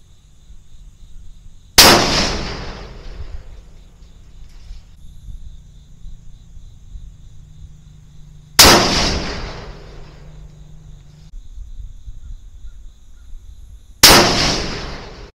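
Three rifle shots from a .308 Winchester CVA Cascade bolt-action rifle, about six seconds apart. Each sharp report is followed by an echo that dies away over about a second and a half.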